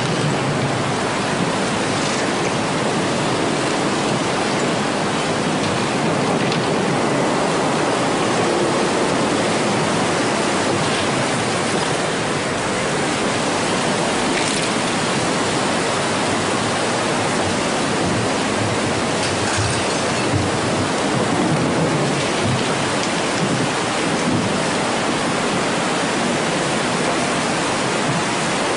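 Tsunami floodwater rushing through a town street: a steady, loud wash of churning water, with a few faint knocks of debris in it.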